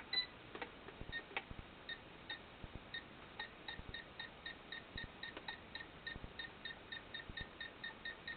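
Short, high electronic beeps repeating. A few are scattered at first, then they settle into a steady run of about four to five a second from about three seconds in. The beeps come as a small electronics board is powered from a bench supply for a first test. Faint clicks of handling sit under them.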